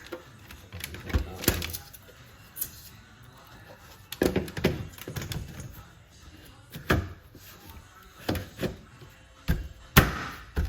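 Irregular knocks and clunks of a doggie door's frame pieces being handled and pushed into the cutout in a door, about eight sharp knocks with the loudest near the end.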